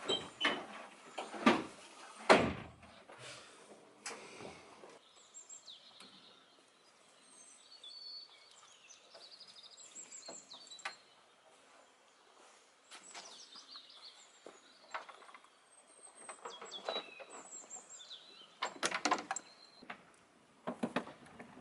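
Small birds chirping in the background, with scattered knocks and thuds, the loudest in the first few seconds.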